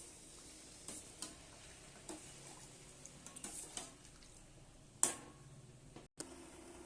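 Kitchen utensils and dishes clicking and tapping lightly and irregularly, with one sharper knock about five seconds in.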